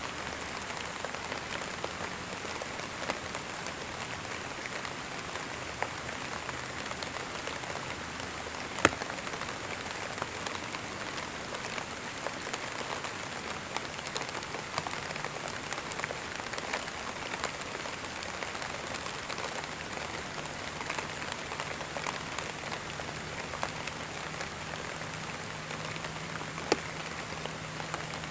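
Steady rain pattering on a surface, with scattered sharp drop hits; two louder drops stand out, one about nine seconds in and one near the end.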